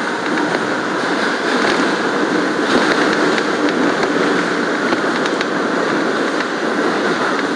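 R179 subway car running along elevated track: a steady rumble of wheels and running gear, with irregular clicks as the wheels pass over the track.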